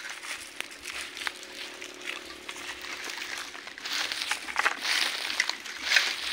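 A pack of dogs crowding in at feeding time, rustling and crackling through dry leaves, with short scrapes and clinks of a spoon in a metal pot of dog food. The rustling and clinks get busier about two thirds of the way through.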